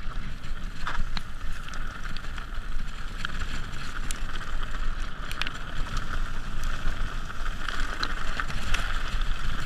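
Mountain bike rolling fast downhill over a dirt trail covered in dry leaves: a steady rush of tyre and trail noise with scattered clicks and rattles from the bike, and wind on the camera microphone.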